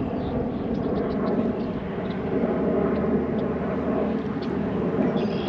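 Steady low engine drone with no breaks, like a motor vehicle or aircraft running some way off.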